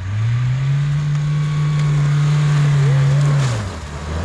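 Off-road 4x4's engine pulling hard in low-range four-wheel drive. The revs rise at the start, hold steady for about three seconds, drop briefly near the end, then pick up again.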